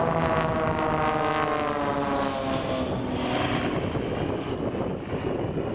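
Propeller-driven aerobatic monoplane (XtremeAir Sbach) passing by with its engine running; the engine note falls in pitch over the first three seconds as it goes past, then turns into a rougher, noisier drone.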